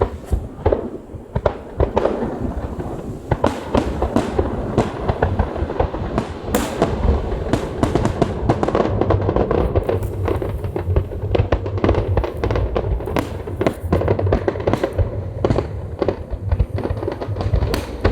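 Fireworks bursting in a dense, rapid barrage: many sharp bangs and crackles in quick succession over a continuous rumble.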